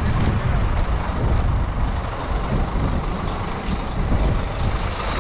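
Steady low rumble of tour buses idling and moving on the road.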